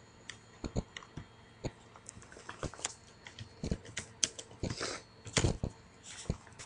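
Typing on a computer keyboard: irregular keystroke clicks, a few louder than the rest about five seconds in.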